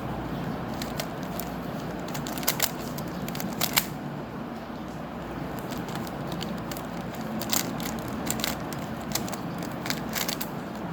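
Rubik's Cube being turned by hand: irregular plastic clicks and clacks of the layers rotating, over a steady low background hum.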